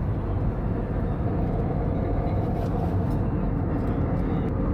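Steady low rumble of a moving vehicle, with a faint hum and a few light clicks.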